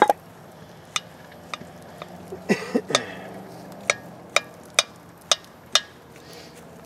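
A metal spoon clinking against a cast-iron Dutch oven as bread is scooped out, a series of sharp clicks, several about half a second apart in the latter half.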